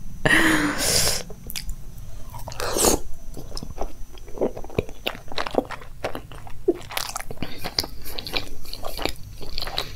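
A person bites into a piece of aloo paratha dipped in masala dahi, then chews it, with many short mouth clicks. The bite near the start is the loudest moment.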